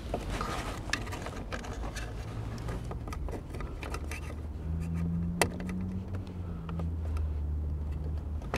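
Hands working wiring connectors and cable looms up under a car dashboard: scattered small plastic clicks and rustling, with one sharper click about five seconds in. A low steady hum runs through the second half.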